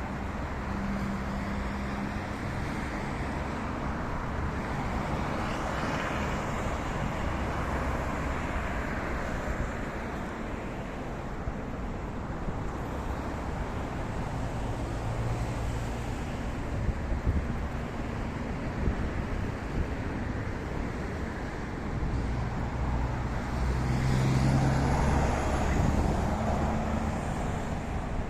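City street traffic: a steady wash of passing cars and engine hum. Vehicles swell past about six seconds in and again near the end, and a few short knocks come near the middle.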